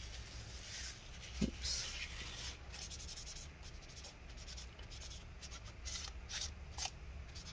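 A small white wipe rubbing over the aluminium trackpad bay of a MacBook Air, drying off water residue: a faint scratchy rubbing, one longer stroke then a run of short wipes.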